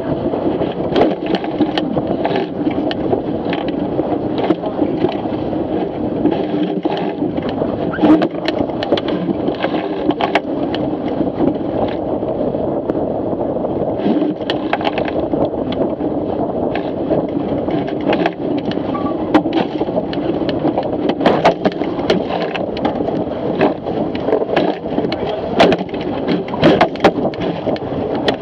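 Fireball dinghy's hull driving through choppy waves at speed: a steady rush of water and wind, broken by frequent irregular knocks and slaps as waves and spray strike the hull.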